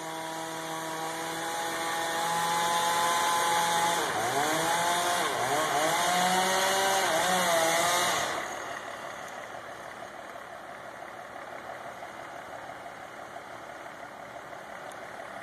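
Chainsaw engine running at a steady pitch, then dipping and recovering several times as it bogs under load cutting into a large tree, before stopping about eight seconds in. A fainter steady rushing noise is left after it.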